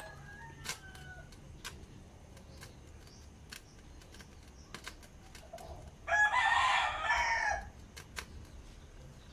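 A rooster crowing once, about a second and a half long, some six seconds in. Faint scattered clicks come from a pepper shaker being shaken over the pan.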